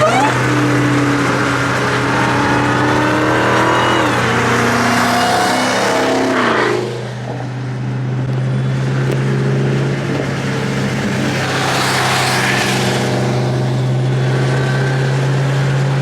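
Supercharged Hellcat Hemi V8 car accelerating, its engine pitch climbing through two pulls over the first seven seconds, then easing off into a steady cruising drone. A rush of road noise swells and fades about twelve seconds in.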